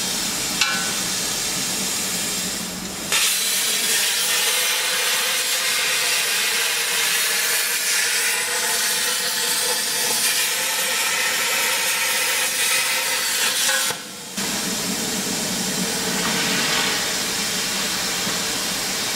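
CNC plasma torch cutting square steel tube: a loud, steady hiss with faint humming tones that starts about three seconds in and cuts off about fourteen seconds in. A duller steady hiss runs before and after the cut.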